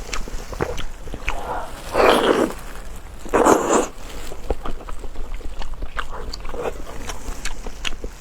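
Close-miked eating: wet chewing and mouth smacking in quick irregular clicks. Two louder, longer noisy sounds come about 2 and 3.5 seconds in.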